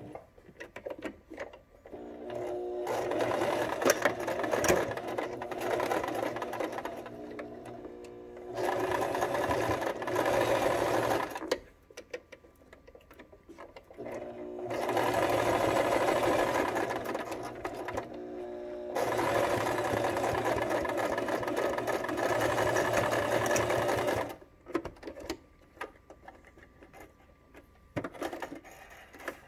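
Brother domestic sewing machine stitching in several runs of a few seconds each, stopping in between, where the presser foot is lifted to pass over each pleat. Near the end it falls still apart from a few light clicks.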